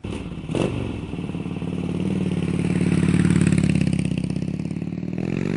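Harley-Davidson Twin-Cooled 103 cubic inch V-twin motorcycle engine running and being revved. There is a sharp click about half a second in, the engine swells to its loudest midway, and it revs up again near the end.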